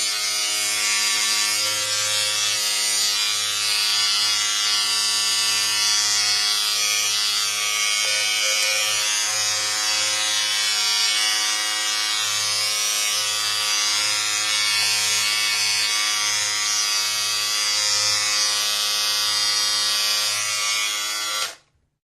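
A steady electric buzz, harsh and unvarying, that cuts off abruptly near the end.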